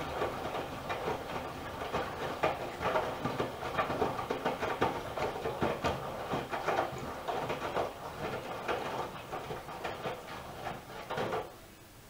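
Miele W1 front-loading washing machine's drum turning wet laundry during a 90 °C wash with extra water (Water Plus): clothes flopping and water sloshing in an uneven run of soft knocks. The drum stops shortly before the end and the sound drops away.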